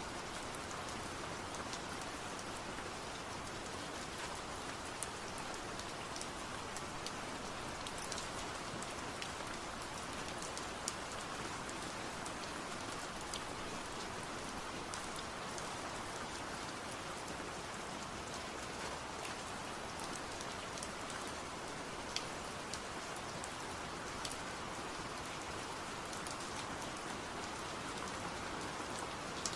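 Steady rain falling, an even hiss with scattered sharp drips and taps of individual drops.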